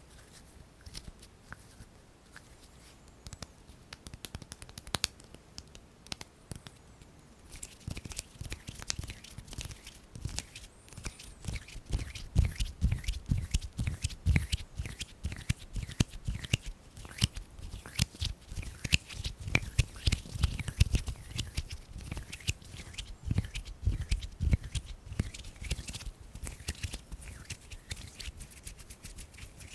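Close-miked hand sounds: skin rubbing and fingers tapping. There are a few scattered soft clicks at first, then from about eight seconds in a dense run of rapid crackling clicks with soft low thumps.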